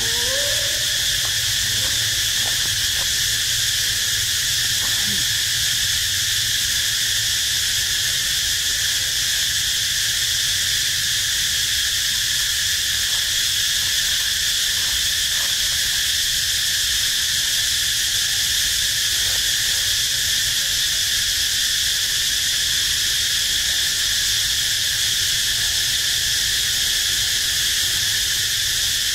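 Dense, steady chorus of insects, a shrill even drone that does not change, with a low rumble underneath.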